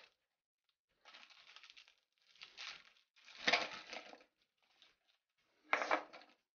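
Plastic Oreo biscuit wrapper crinkling in short bursts, about five in all, as the biscuits are tipped out of the packet onto a plate.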